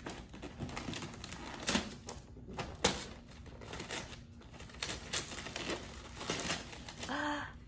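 Wrapping paper crinkling and tearing in a series of irregular crackles and rips as a child's fingers punch through the paper covering a prize cup on a homemade punch board.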